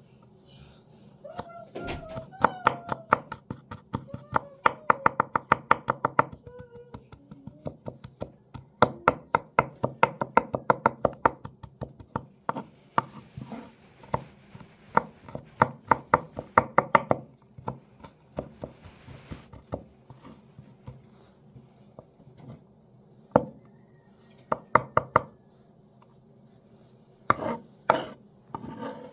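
A kitchen knife chopping on a cutting board, in runs of quick, even strokes, several a second, with short pauses between the runs.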